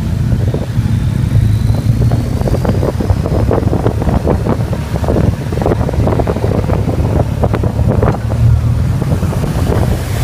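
Wind buffeting the microphone of a phone on a moving motorcycle, over the steady low running of BMW motorcycle engines riding in a group at parade pace.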